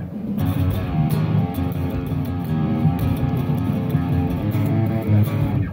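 Electric guitar, a Fender American Professional Telecaster, played through an amp with a heavy tone: a fast picked riff centred on the low strings, with quick, choppy note attacks.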